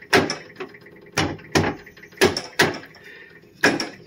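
Sharp metallic knocks, about eight in pairs roughly once a second, as a compression fitting is forced by hand onto the cut end of an aluminium fuel line. The fitting is sticking because the line's end was not deburred.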